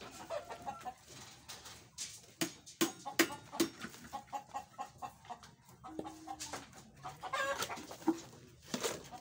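Chickens clucking, with a scatter of sharp clicks and knocks between the calls.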